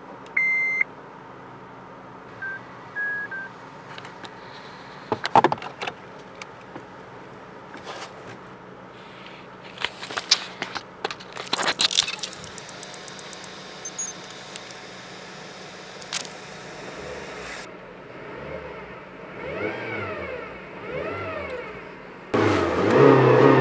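Car keys jangling and clicking at the ignition of a Honda Civic, then a run of about seven short high beeps. Later the engine runs and is revved up and down, loudest near the end.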